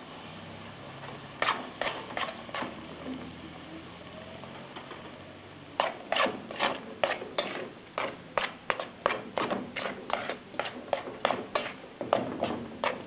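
A utensil knocking against a cooking pot while stiff starch fungi is stirred and beaten: three sharp knocks, a pause, then from about six seconds in a steady run of knocks at about three a second.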